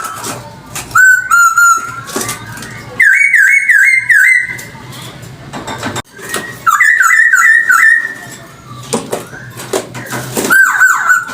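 Chinese hwamei (poksay hongkong) singing loudly in whistled phrases. Swooping notes alternate with runs of quick repeated looping notes, about four a second, with short pauses between phrases.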